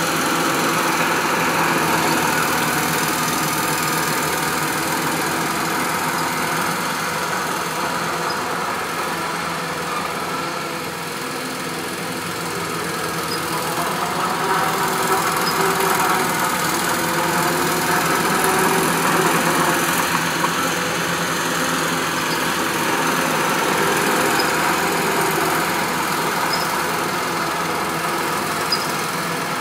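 Caterpillar 953 crawler loader's diesel engine running while it grades dirt. The engine note eases off about ten seconds in and then swells again as the machine works.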